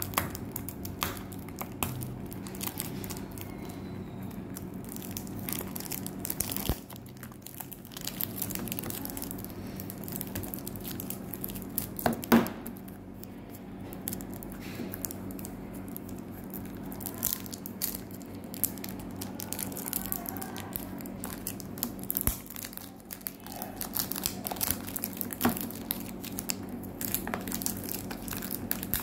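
Clear cellophane shrink wrap on a perfume box crinkling and crackling in irregular bursts as fingers pick at it and peel it off, with one sharper snap about twelve seconds in, over a steady low hum.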